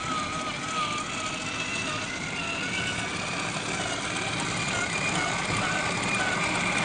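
Gmade GS02F Buffalo RC crawler's electric motor and gearbox whining as it drives over sand, the pitch wavering with the throttle. It grows slightly louder toward the end as the truck comes closer.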